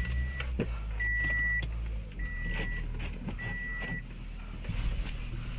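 A car's dashboard warning chime beeps four times, evenly spaced about a second apart, and then stops. Under it the car's engine runs with a low, steady hum.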